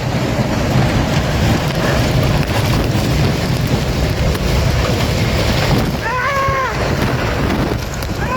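Tornado-force wind blowing hard and steadily, with heavy buffeting on the microphone. About six seconds in, a short pitched wail rises and then falls over it.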